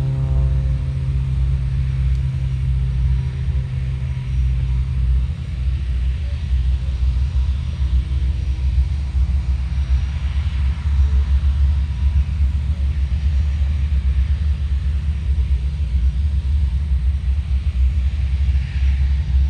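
Deep, steady rumble of aircraft engines in flight, with a rushing noise that swells about ten seconds in and again near the end as planes pass.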